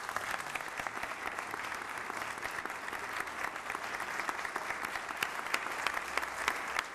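Audience applauding, many hands clapping in a steady, even patter.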